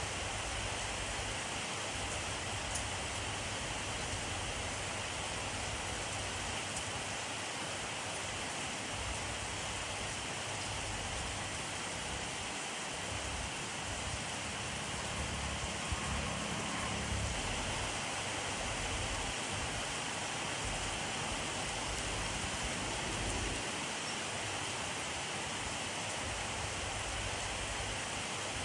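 Steady rainfall: a dense, even hiss of many drops landing, with a low rumble swelling briefly around the middle.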